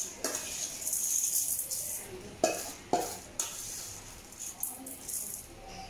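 A spoon scraping raw red rice grains out of a steel bowl and tipping them into an aluminium pan, the grains rustling and pattering in, with two sharp metal clinks of the spoon against the rim about two and a half and three seconds in.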